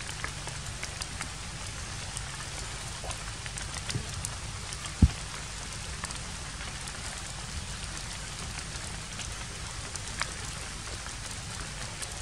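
Steady patter of light rain on foliage, sprinkled with small ticks, with one low thump about five seconds in.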